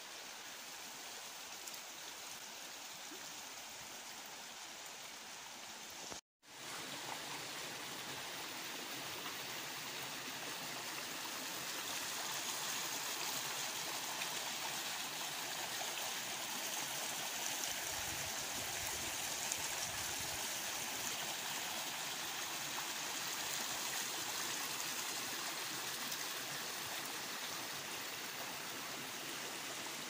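Steady rush of running water from a stream. The sound cuts out for a moment about six seconds in, then comes back slightly louder.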